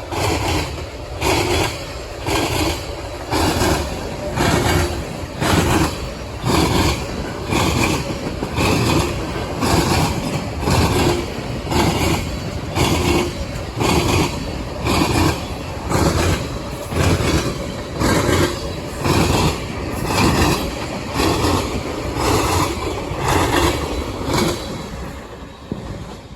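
Train rolling past close by, its wheels clacking over the rail joints in a steady rhythm of a little over one beat a second. The level eases off near the end.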